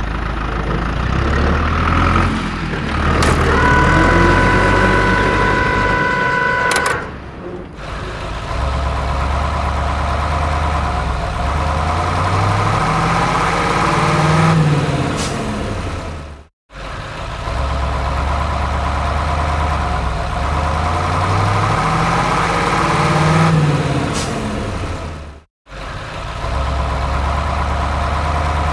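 Excavator engine running, its low note stepping up and down in pitch as it works. A steady beep sounds for about three seconds near the start, and the sound cuts off abruptly twice.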